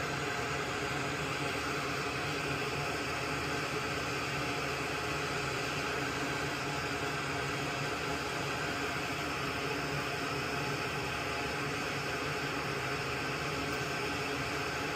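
A steady, even hiss like a small fan running, with no breaks or changes.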